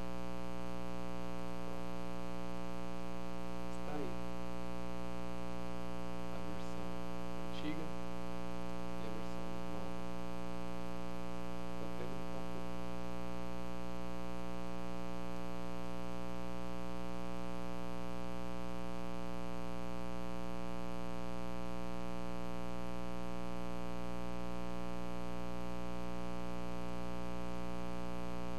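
Steady electrical mains hum with many evenly spaced overtones, picked up by the recording setup. A few faint brief noises come in the first dozen seconds.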